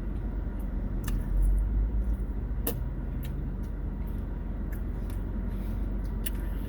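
Steady low rumble of an idling car heard from inside the cabin, with a few small sharp clicks scattered through it.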